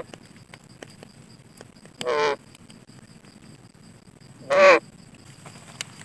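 A green parrot squawking twice, two short calls about two and a half seconds apart, the second louder.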